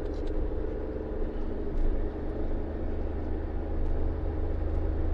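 Daihatsu Hijet Cargo kei van driving along a road, heard from inside the cabin: a steady engine drone and road noise with a deep, constant rumble.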